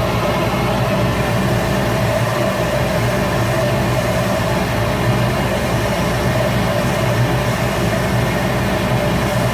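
Shop Fox W1836 midi wood lathe running steadily with an even motor hum.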